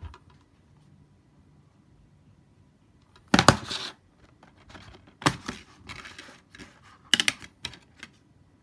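Plastic DVD case being handled: a loud knock and scrape about three seconds in as it is laid on a wooden table, then sharp clicks and rattles as the case is snapped open near the end.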